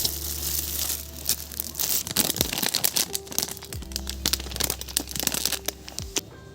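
Handling noise: a dense run of sharp crackles and rustles, as of something being crumpled or torn, over soft background music with held low notes.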